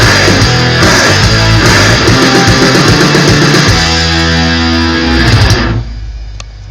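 Hockey goal song: loud rock music with electric guitar, cutting off about six seconds in to a short fading tail.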